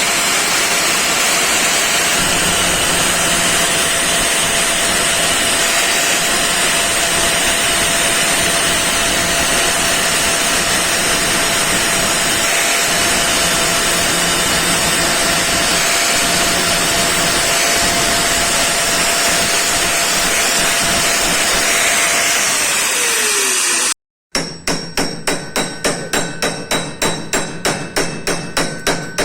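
A power tool runs steadily with a loud, even grinding noise and a faint whine; near the end the whine falls as the motor winds down. After a brief break, a hammer strikes metal rapidly, about four ringing blows a second.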